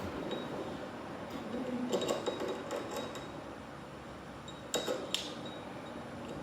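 A few light clinks and taps of hard objects, some with a faint ring, in two small clusters about two seconds and five seconds in, over a steady background noise.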